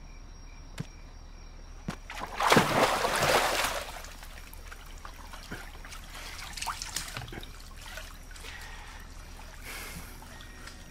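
Bath water splashing as someone gets into a wooden bathtub: a loud splash about two seconds in, then quieter sloshing and trickling as the water settles.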